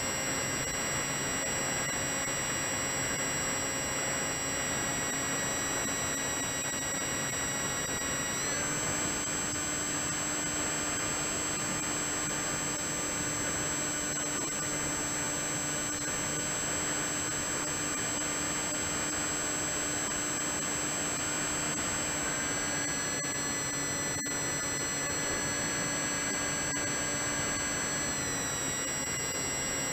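Onboard sound of an FMS Red Dragonfly RC model airplane in flight: a steady whine from its electric motor and propeller over rushing wind noise. The whine steps up in pitch about a third of the way through, and shifts again near the end.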